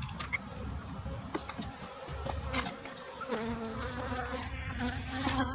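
Honey bees buzzing around an open hive: a steady hum that becomes more distinct about three seconds in, with a few sharp clicks over it.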